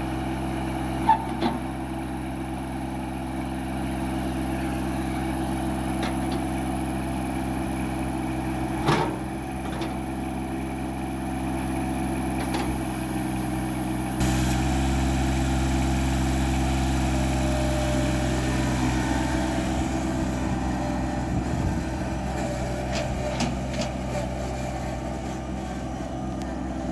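John Deere 2305 compact tractor's 24 hp three-cylinder diesel engine running steadily just after starting. There are a few sharp knocks about a second in and again around nine seconds, and about fourteen seconds in the engine sound steps up louder.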